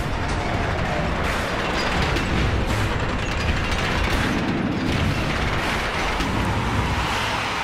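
Continuous heavy mechanical grinding and rumble, with faint music beneath.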